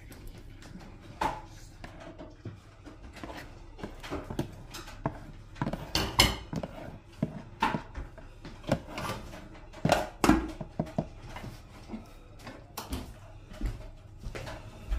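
A metal utensil clinking and scraping against a sauce container and a plate in irregular knocks while thick satay sauce is scraped out over the skewers, with the loudest knocks about six and ten seconds in.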